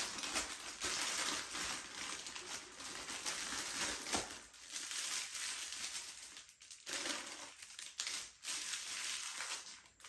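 Plastic packaging crinkling and rustling as a set of makeup brushes is unwrapped and handled, with small clicks in between and a few short pauses.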